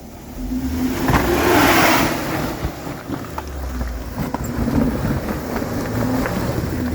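Jeep Wrangler engine revving under load as it crawls over rocks, with a loud rush of tyres scrabbling on rock and crunching clicks about a second in, then settling into a steady drone.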